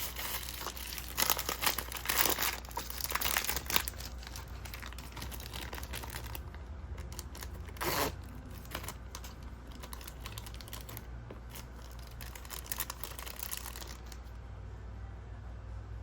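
Plastic blind-box packaging crinkling and tearing as a small collectible figure is unwrapped by hand: a dense run of crinkles at first, a short tear about halfway, then scattered rustles that die away near the end.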